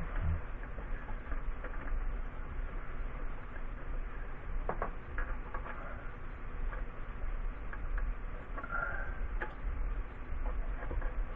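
Scattered light clicks and small rustles of hands handling electrical wire and connections, over a low steady hum.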